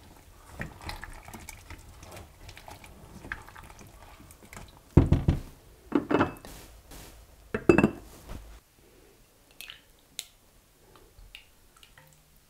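Silicone spatula stirring a chunky goulash in a stainless steel pot, with three louder strokes about midway. After that it goes much quieter, with a few light clicks.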